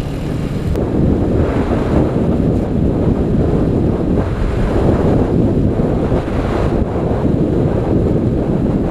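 Wind rushing and buffeting over the microphone of a motorcycle moving at speed, a steady, dense low rumble with road noise beneath it.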